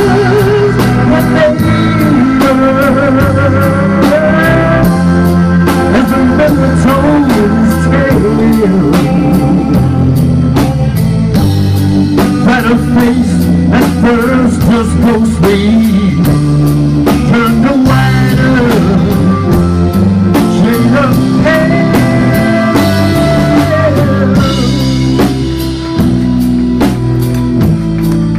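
A live band of electric guitar, electric bass and drum kit playing a rock-blues number, loud and steady. The electric guitar plays a bending, wavering lead melody over a moving bass line and busy drums and cymbals.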